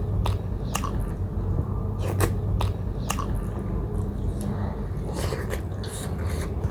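Close-up chewing and biting of steamed buff momo dumplings, with wet mouth clicks and smacks every second or so over a steady low hum.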